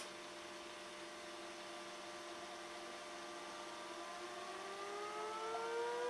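Turbomolecular pump spinning up on its rebuilt hall-sensor motor drive: a steady whine of several tones that grows louder, then from about four seconds in rises in pitch as the rotor accelerates.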